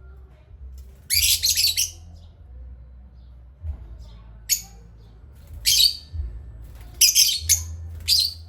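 Pet parrots chirping and squawking: about five short, shrill, harsh bursts of calls spread a second or so apart, over a steady low hum.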